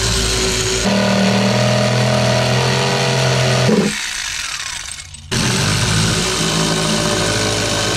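Corded electric jigsaw cutting 1/4-inch fiberglass. It runs steadily, cuts out a little before halfway, and starts again about a second and a half later.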